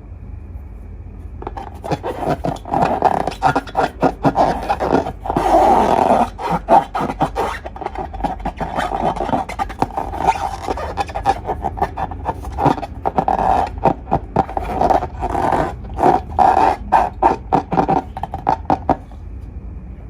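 Slime being squeezed and kneaded by hand, a dense run of wet crackling and popping clicks that starts about a second and a half in and stops shortly before the end.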